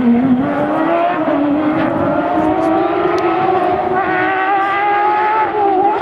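Porsche 911 GT3 rally car's flat-six engine accelerating hard, its note rising steadily in pitch as the car comes up the road.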